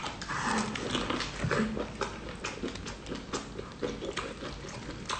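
Close-up eating sounds of a person chewing seafood: irregular wet smacks and clicks of the mouth, several a second.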